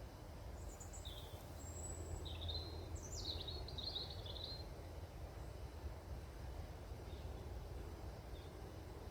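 A songbird calling in a quick run of short, high chirps and trills during the first half, then falling quiet, over a steady low background rumble.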